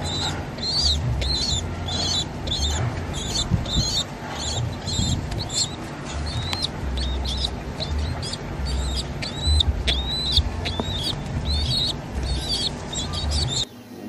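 Young pigeon squab peeping over and over in short high-pitched begging calls, about two to three a second, as it is hand-fed, with low thumps of handling noise. The calls stop abruptly just before the end.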